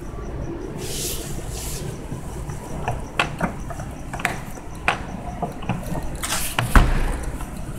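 Handling noise from a phone being moved around while filming: rubbing, then a series of sharp clicks and taps from about three seconds in, with a louder thump near the end. Under it runs a low steady rumble, with faint regular high chirping like crickets.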